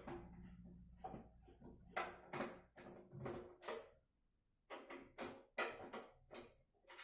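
Computer parts being handled and fitted inside a PC case: about a dozen short knocks, clicks and rattles, with a brief pause a little after four seconds in.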